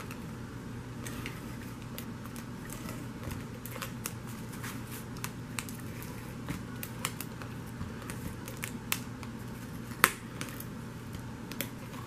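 Fast Fuse adhesive tape runner and cardstock being handled on a craft mat: scattered small clicks and taps, the sharpest about ten seconds in, over a steady low hum.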